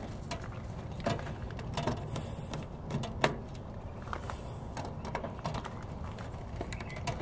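Scattered small clicks and scrapes of a screwdriver turning a terminal screw on a heat pump defrost board, over a faint steady background noise.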